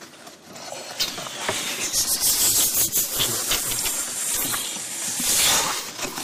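Stifled laughter from several people trying to keep quiet: breathy hissing through held-in giggles, with small clicks and rustles, building up about a second in.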